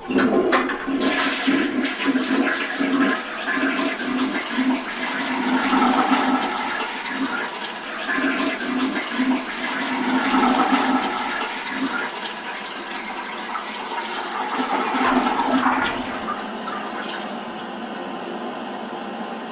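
Flush toilet being flushed: a sudden loud rush of water with gurgling that swells and ebbs, easing after about 16 seconds into a quieter, steady flow of running water.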